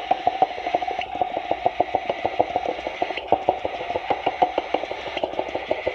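Microwave oven running while it heats water for baby-bird hand-feeding formula, with a rapid, even ticking of about nine a second.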